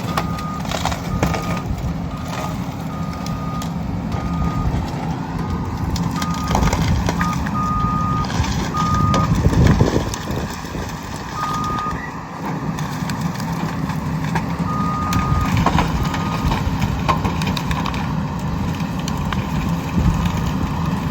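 Cat 320E L excavator's diesel engine running under load, with its travel alarm sounding short single-pitch beeps on and off as the machine tracks. Scattered cracks and knocks come through, and the machine gets louder about halfway through.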